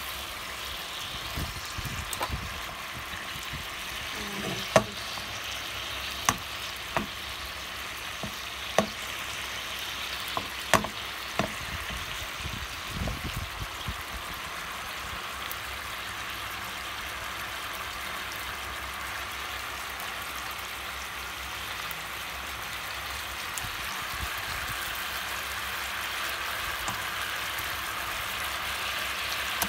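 Pork shoulder steaks frying in bubbling pan juices and oil, a steady sizzle that grows a little louder near the end. In the first half, a series of sharp metal clicks as steel tongs knock against the pan while the steaks are turned.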